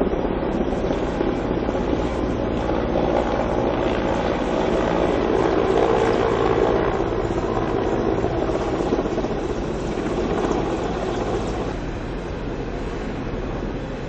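Firefighting helicopter with a water bucket slung beneath it, flying over the forest: a steady rotor and engine noise that grows louder toward the middle and eases off near the end.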